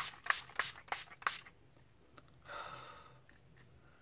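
Pump-spray bottle of makeup setting spray misted at the face, about five quick spritzes in the first second and a half, each a short hiss. About two and a half seconds in comes a longer, softer breathy hiss.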